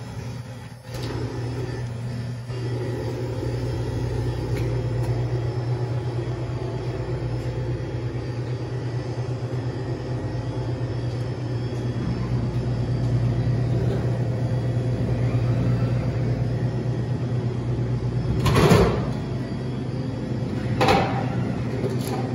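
Steady low mechanical hum from a glass-front touchscreen drink vending machine. Two sharp knocks come near the end, the first the louder.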